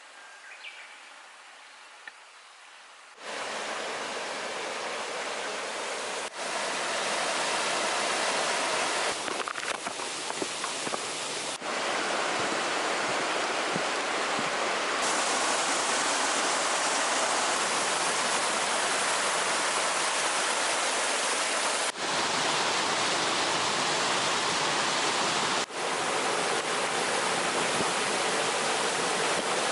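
Steady loud rushing noise like running water, starting suddenly about three seconds in after a faint quiet stretch, with a few brief dropouts.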